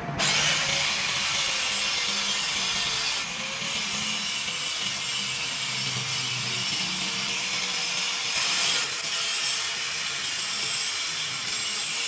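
A power tool working metal, making a steady hissing cutting or grinding noise over a faint motor tone that wavers slightly.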